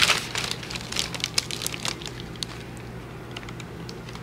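Tissue paper crinkling inside a sneaker box as the shoes are handled, a dense run of crackles for the first two seconds, then only a few faint ticks.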